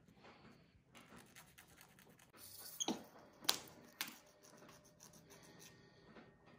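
Faint scratching of manicure tools on a capuchin monkey's nails, with three sharp clicks about three to four seconds in.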